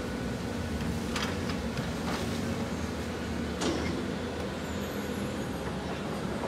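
CAT 320D hydraulic excavator's diesel engine running steadily under load as the machine swings and reaches out to dig, with a few short knocks about one, two and three and a half seconds in.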